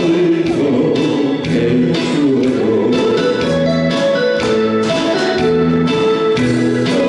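Instrumental passage of a recorded backing track between sung lines, with no voice.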